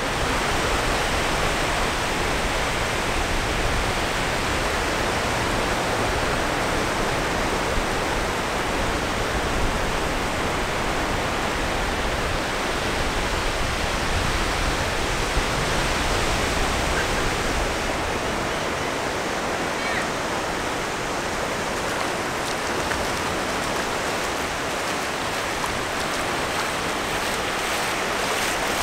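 Steady, even rushing noise of surf washing on a beach.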